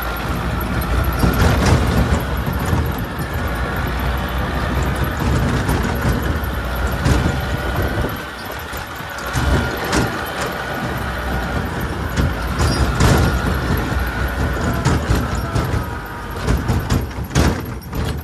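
T-40AM tractor's four-cylinder air-cooled diesel running steadily under load as the tractor drives through tall grass, with frequent metallic clatters and knocks over the engine note.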